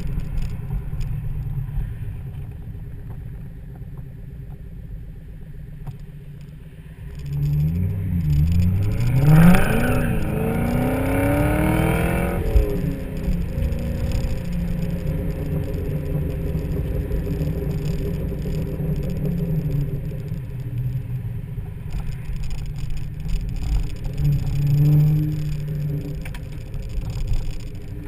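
2003 SVT Mustang Cobra's supercharged 4.6-litre V8 driving along. About eight seconds in, its note climbs for several seconds as it accelerates, with a high whine over it, then settles to a steady cruise. It is heard from the back of the open convertible.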